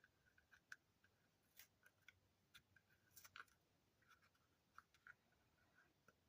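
Near silence, with faint scattered ticks and rustles from hands pressing and positioning adhesive grip tape on a pistol frame.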